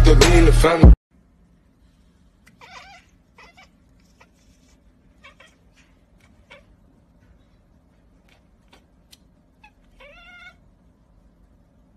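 Loud intro music cuts off about a second in. After it, a cat gives faint short meow-like calls: a brief one near the start and a longer rising one about ten seconds in, with small clicks between.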